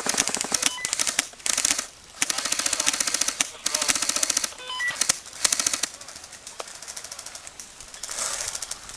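Airsoft guns firing rapid full-auto bursts: a fast rattle of many clicks a second. There are several bursts in the first six seconds, then fainter firing.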